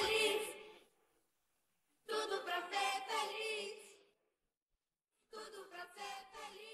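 The backing music of a pop song fades out, followed by two short phrases of high voices singing unaccompanied, with silent gaps between them.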